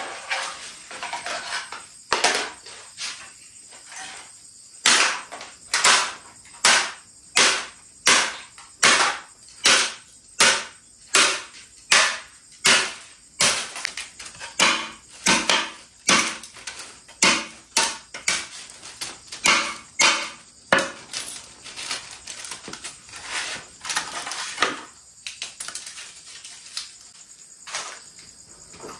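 Repeated sharp strikes at a steady pace, about four every three seconds, thinning out and stopping near the end.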